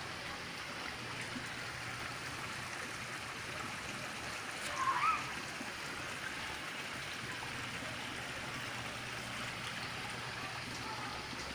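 Steady outdoor background hiss, with a brief high chirp about five seconds in.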